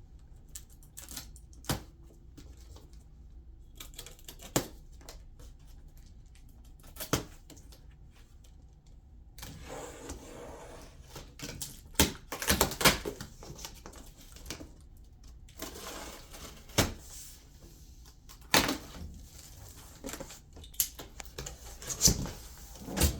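A cardboard shipping box being opened by hand: scattered knocks and clicks at first, then from about ten seconds in a busy stretch of rustling and scraping cardboard with sharp clacks and bumps.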